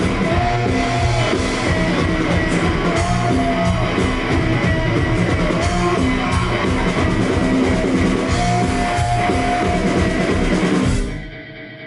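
Live rock band playing: electric guitar and a drum kit keeping a steady beat under a woman's held sung notes. Near the end the band stops abruptly and the sound falls to a much quieter level.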